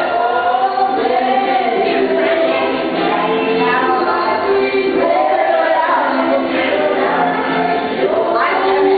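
Music with a choir of voices singing sustained notes.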